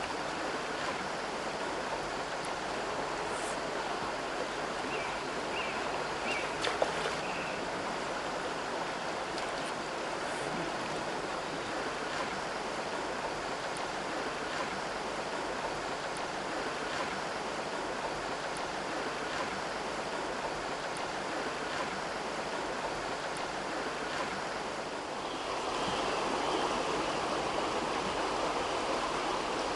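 Shallow river running over stones: a steady rush of flowing water, growing a little louder and fuller near the end.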